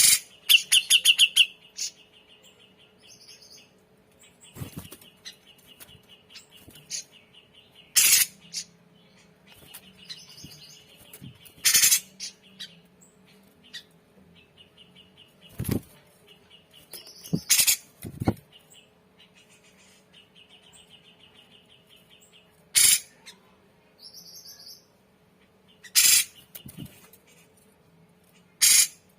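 Grey-cheeked bulbul (cucak jenggot) calling: loud, harsh calls every few seconds over a quieter, rapid, high chattering trill.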